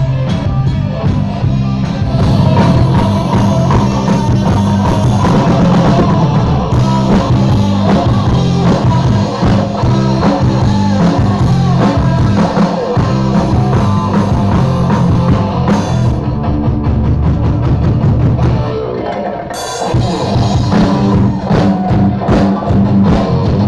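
Live rock band playing loudly: electric guitars and a drum kit with a singer. There is a brief lull in the playing about nineteen seconds in, and then the full band comes back in.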